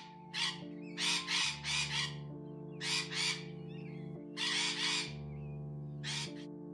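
Green-winged macaw giving harsh squawks, about ten short calls in small runs, over background music of slow held chords.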